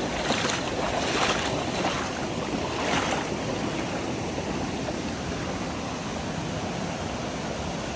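Shallow mountain stream rushing over a pebble bed, a steady hiss of running water, with a few sloshes from wading boots stepping through it in the first three seconds.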